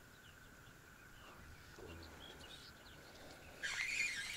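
Small birds chirping now and then over a faint steady high tone, with a louder hissing burst of noise starting about three and a half seconds in.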